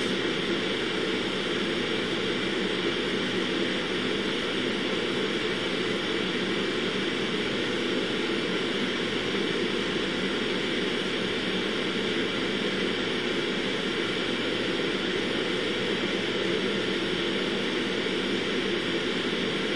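Steady, unchanging background hiss and hum of room ventilation and equipment noise. No distinct motor sound starts or stops.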